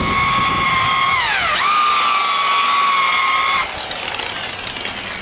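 DeWalt electric buffer spinning a polishing pad on car paint with a steady high whine. Its pitch sags briefly about a second in and recovers. The whine then stops about three and a half seconds in.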